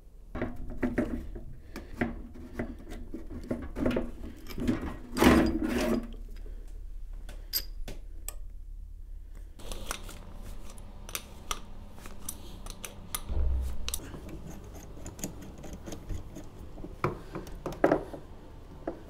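Hand work on water-manifold plumbing fittings: a series of clicks, knocks and scraping as parts are handled and fitted. About halfway through the background changes to a faint steady hum with lighter, scattered clicks.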